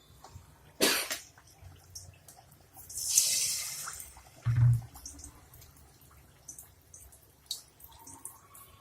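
Battered chicken lollipop pieces frying in hot oil: a burst of sizzling about three seconds in as a piece goes into the oil, with scattered light crackles. A sharp knock about a second in and a dull thud just after the sizzle.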